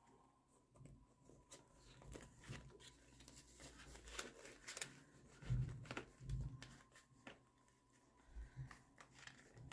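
Faint rustling and crinkling of paper dollar bills and a thin plastic binder sleeve being handled, with scattered light ticks and a couple of soft bumps about halfway through.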